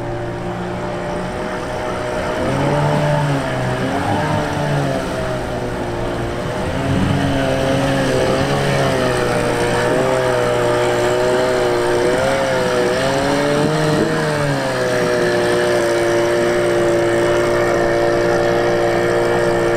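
Car engine running, its revs rising and falling again and again.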